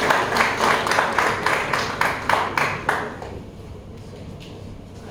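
Audience applause thinning out into a few people clapping in a steady beat, about three or four claps a second, dying away about three seconds in and leaving a quiet room.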